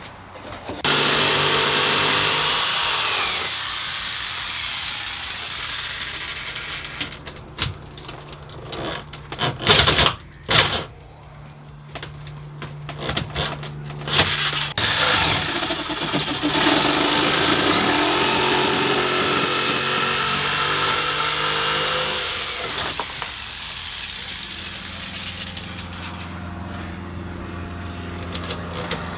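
Handheld electric power tool cutting an opening in a plywood bench-seat front panel. It runs loudly in two long spells, one about a second in and one from about fifteen to twenty-two seconds, with quieter running and several sharp knocks in between.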